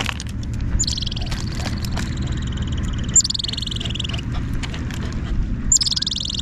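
A squirrel chattering: three rapid, rattling calls, each about a second and a half long and falling in pitch, with a steady low rumble underneath.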